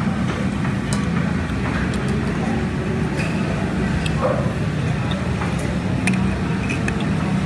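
Steady low background rumble, with a few light clicks scattered through it.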